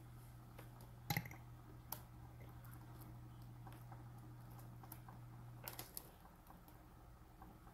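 Faint handling sounds of small craft pieces being worked by hand: a few light clicks and taps, the sharpest about a second in and again just before six seconds. Under them a steady low hum runs and then stops just before six seconds.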